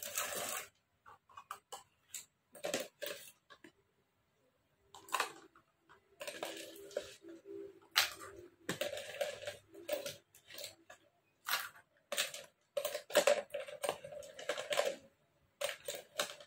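Ice cubes spooned into a glass, clinking and clattering against the glass and a metal spoon in an irregular run of sharp clinks, some with a short ring.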